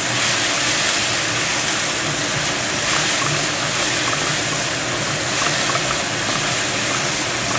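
Vegetable fern shoots stir-frying in hot oil, a steady loud sizzle with small crackles scattered through it.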